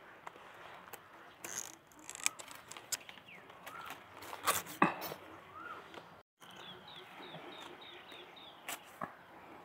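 Sharp snaps and crackles of dry stems and leaves as wild bamboo shoots are snapped off by hand, with small birds chirping; after a brief break about six seconds in, a quick run of high bird chirps.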